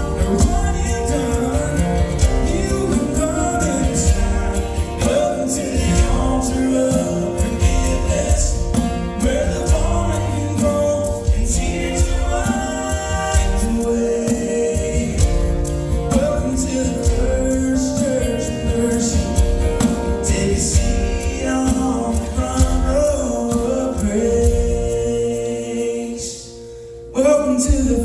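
Gospel song sung with instrumental accompaniment. The music drops away briefly about a second before the end, then picks up again.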